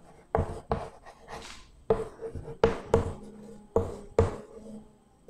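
Chalk writing on a chalkboard: a string of short, sharp taps and scrapes at irregular intervals as letters are drawn.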